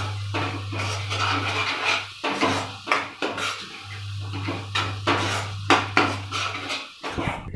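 Steel spatula stirring and scraping thick masala paste around a nonstick kadhai: a quick, irregular run of scrapes and clatters against the pan as the paste fries in oil.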